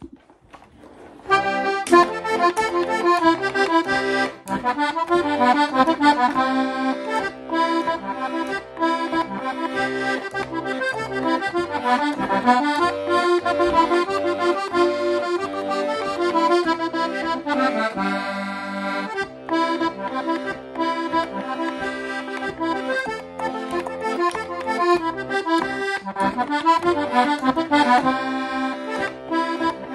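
Diatonic button accordion tuned G/C/F playing a Québécois folk reel, quick melody notes over an alternating bass, starting about a second in. About two-thirds of the way through, one chord is briefly held before the tune runs on.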